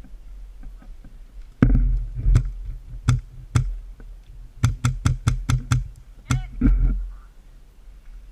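Airsoft guns firing: a few spaced single shots, then a quick string of about eight shots, then two more near the end.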